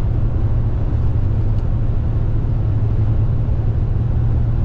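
Steady low rumble of road and engine noise inside a moving car at highway speed.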